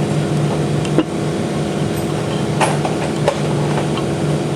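A steady mechanical hum with a pulsing low note, with a few light metallic clicks as a spool valve is worked out of an automatic transmission's aluminium valve body.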